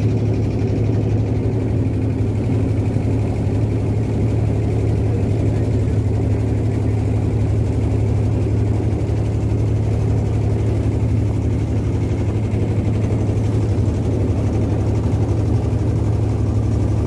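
Engine of a wooden river boat running steadily under way, a low, even drone that does not change.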